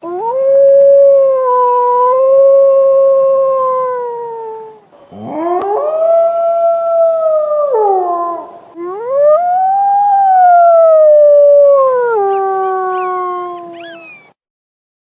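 Wolf howling: three long howls in a row, each a sustained wavering tone that swells and fades. The second howl starts with a sharp upward slide, and the third climbs higher before sinking. A higher, wavering voice overlaps near the end.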